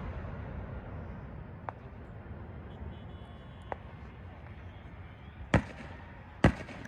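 Fireworks: the rumbling echo of a loud barrage fades away, with a couple of faint pops in the lull. Near the end come two sharp bangs about a second apart.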